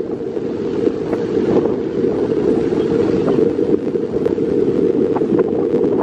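Strong wind buffeting the microphone in a steady, heavy rumble, with ocean surf washing over shoreline rocks underneath.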